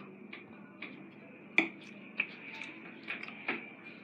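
A metal fork clicking against a plate: half a dozen light, separate clinks, the loudest about a second and a half in, over a faint steady high-pitched hum.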